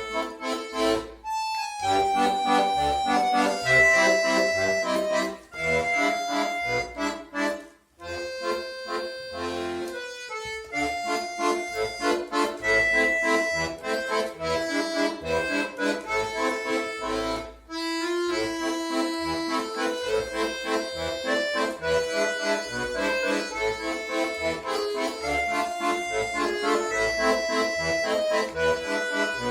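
Accordion playing an instrumental tune: a melody over pulsing bass notes and chords, with short breaks between phrases.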